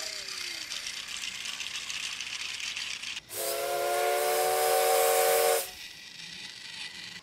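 Steam locomotive sound effect: a hiss of escaping steam for about three seconds, then a steady steam whistle blast of several notes at once lasting about two seconds, then a softer hiss.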